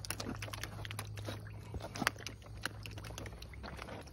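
Bluegill smacking their lips at the pond surface as they snap up food: many sharp little pops and smacks in quick, irregular succession.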